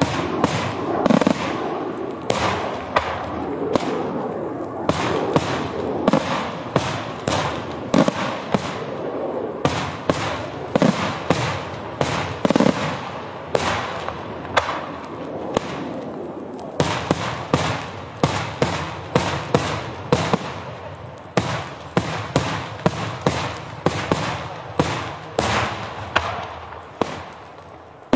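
Daytime aerial fireworks: a long, rapid, irregular series of loud bangs from bursting shells. From just past the middle the bangs come more separately, about two to three a second.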